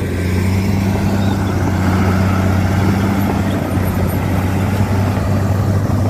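Heavy diesel engines of a loaded dump truck and a Komatsu D65P crawler bulldozer running, a steady low engine hum under a wash of mechanical noise.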